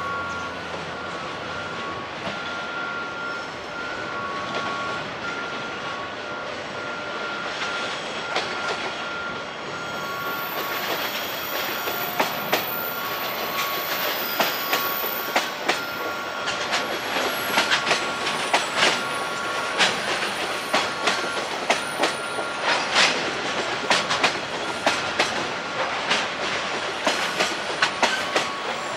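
Freight train hauled by a JR Freight Class EF210 locomotive moving through the yard, its wagon wheels rumbling on the rails. A high wheel squeal starts about ten seconds in, and from about twelve seconds the wheels clack sharply over rail joints, one to two clacks a second.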